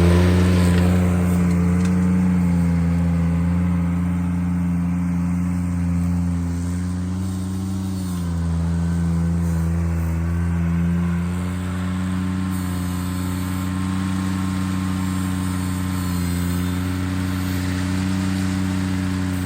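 Ventrac compact tractor engine running steadily, its pitch dipping and recovering a few times.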